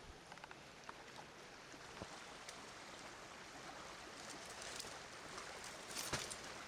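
Creek water running, a faint steady rush, with a few short knocks, the loudest about six seconds in.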